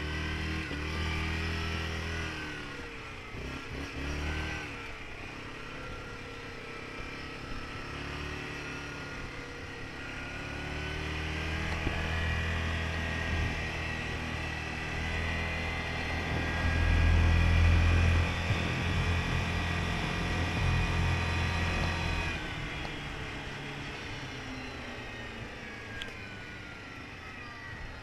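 Four-wheeler (ATV) engine running on the move, its pitch rising and falling with changes of speed. It is loudest a little past halfway and eases off over the last few seconds.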